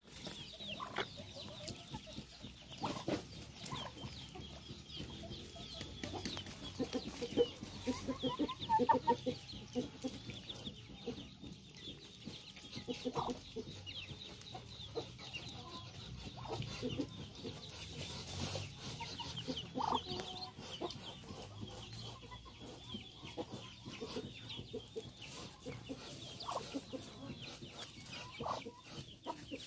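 Muscovy ducklings peeping continually, with high, short, falling notes, while chickens cluck in quick runs of short calls, the busiest stretch coming about a third of the way in.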